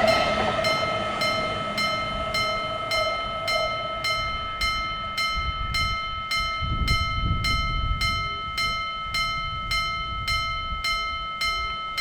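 Japanese railroad crossing warning bell ringing steadily, about two strikes a second, signalling that the crossing is closed. A passing train's rushing sound fades away over the first few seconds.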